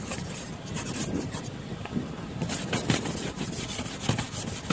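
Ice scraper rasping frost off a frozen car window in short, irregular strokes, with the car's engine running underneath while its heater has not yet cleared the glass.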